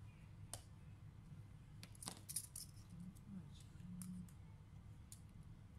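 Faint scattered clicks and light hard taps of small parts being handled on an open laptop chassis, with a quick cluster of clicks about two seconds in, over a steady low hum.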